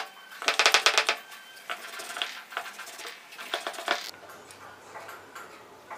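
Steel tumbler clicking and knocking against a wooden board as its rim is pressed through rolled dough to cut out circles: a quick rattling run of clicks about half a second in, then scattered knocks until about four seconds in.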